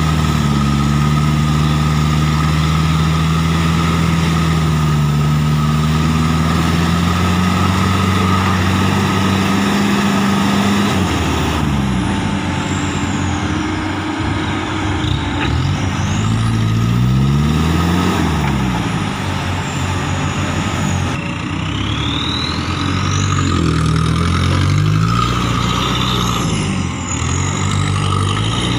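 Heavy diesel engines of a mud-stuck light truck and a JCB tracked excavator running under load. The pitch is steady for the first ten seconds or so, then rises and falls over and over as the engines are revved, with a faint high whine gliding up and down.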